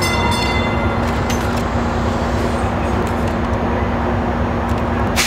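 DART light rail train at the platform, its equipment giving a steady low rumble and hum. A faint high whine fades out in the first second and a half, and there are a few clicks. A sudden loud burst of hiss comes near the end.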